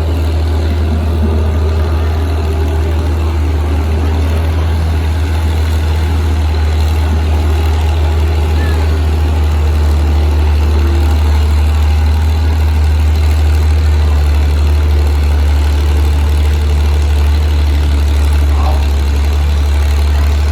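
Farm tractor engine running steadily and loudly, getting a little louder about halfway through.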